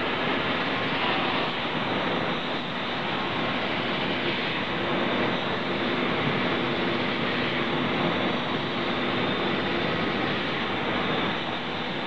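QCL 160 vertical ultrasonic washing machine running, its water jets spraying the glass vials inside the clear cover: a steady rushing noise with a faint hum under it.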